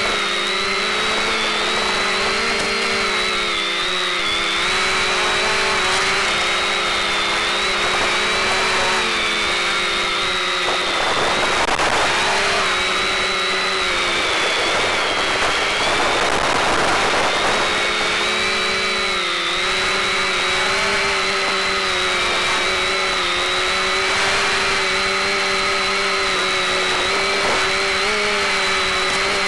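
SK450 quadcopter's electric motors and propellers whining in flight, several pitches wavering up and down together as the throttle changes, over a steady hiss, carried on the recorded FPV downlink.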